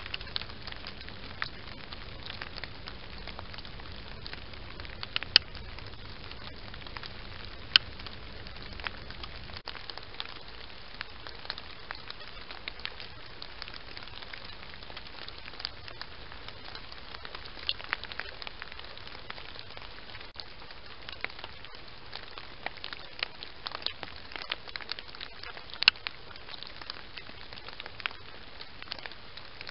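Steady hiss from a trail camera's microphone, with irregular crackling clicks throughout and a few louder sharp ticks, the loudest about 5, 8 and 26 seconds in.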